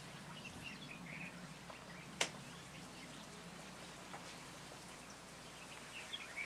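Quiet open-air ambience: scattered faint bird chirps over a low steady hum, with a single sharp click about two seconds in.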